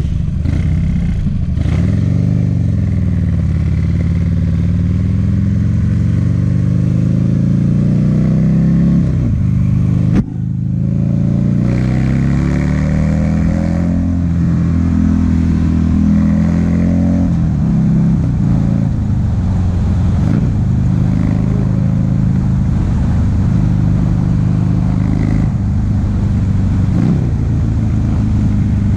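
2009 Buell XB1200SS's air-cooled V-twin, breathing through a Jardine aftermarket exhaust, pulling under way. The engine pitch climbs steadily for several seconds and drops abruptly about ten seconds in at a gear change, then rises and holds, easing on and off the throttle.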